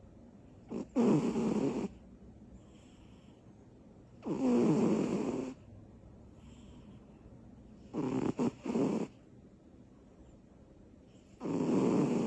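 A small domestic cat snoring in her sleep: four loud snores about every three and a half seconds, with faint breaths between them.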